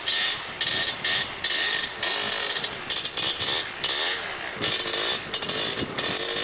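Vehicle engine revving up and down again and again as its tyres spin on snow and ice without getting traction.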